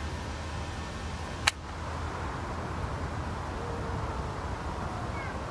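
Outdoor wind buffeting the microphone: a steady rushing noise with a low rumble, broken once by a single sharp click about a second and a half in.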